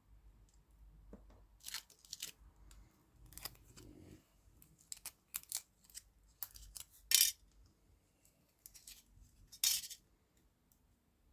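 Candy packaging being handled and opened: irregular crisp crinkles, snips and tears of plastic wrappers. The loudest come about seven and nearly ten seconds in.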